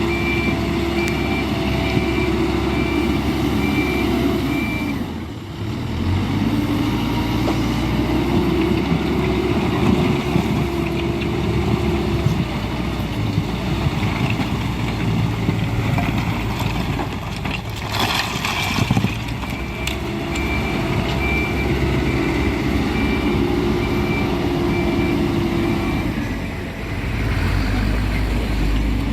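Heavy diesel earthmoving machinery working under load, the engine drone dipping briefly about five seconds in and then picking up again. A reversing alarm beeps steadily at the start and again for several seconds about three-quarters of the way through. A short harsh burst of noise comes just past the middle.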